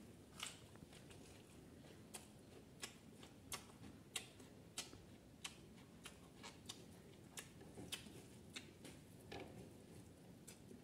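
Faint mouth clicks and lip smacks of a person chewing a mouthful of rice, about one and a half a second.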